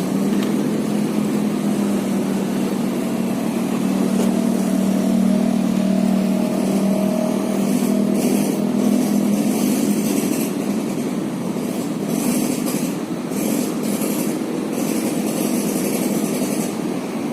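A steady engine drone, with a hiss that comes and goes from about halfway through.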